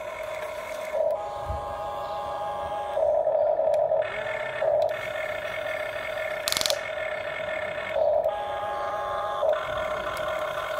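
HUINA radio-controlled toy excavator's electric motors whining steadily as the cab swings and the boom and arm move, growing louder in several short spells. One brief sharp noise comes about two-thirds of the way through.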